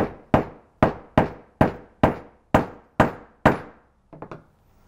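Claw hammer striking a rivet cap on a small steel anvil, setting a rivet through a leather strap: nine sharp blows, about two a second, each ringing briefly. A few light clicks follow near the end.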